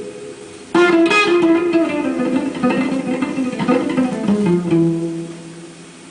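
Guitar playing: plucked notes and chords, with a strong new passage struck about a second in that rings and dies away near the end.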